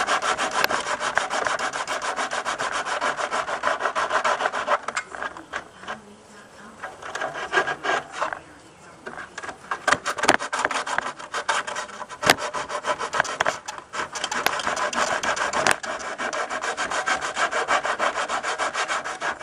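Coarse 40- or 36-grit sandpaper scrubbed back and forth by hand over cured fiberglass cloth in quick, rapid strokes, roughing it up for a coat of long-strand fiberglass filler. The strokes ease off for a few seconds in the middle, then pick up again.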